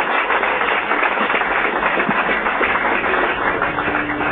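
Restaurant crowd applauding and cheering, a dense, steady clatter of clapping hands. A faint steady hum joins about three and a half seconds in.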